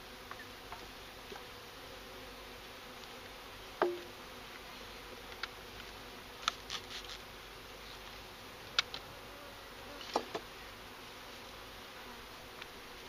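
Honeybees from a package buzzing steadily as a low hum, with a handful of sharp knocks and taps, the loudest about four seconds in.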